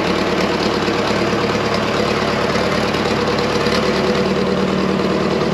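Classic tractor engine running at a steady, even pace as it tows a second tractor on a short strap.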